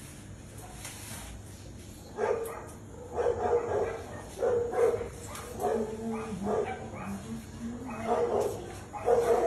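A dog barking, short repeated barks and yips starting about two seconds in.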